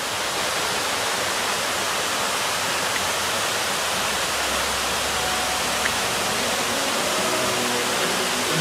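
Steady, even rush of falling water from a waterfall, a constant hiss with no breaks.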